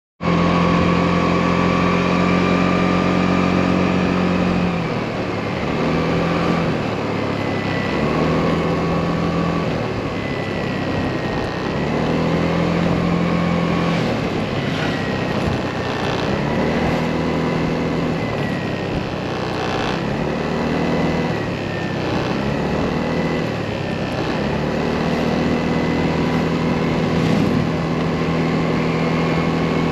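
Motorcycle engine running while riding, heard from on board, its note easing off and coming back every few seconds as the throttle changes, over steady wind and road rush.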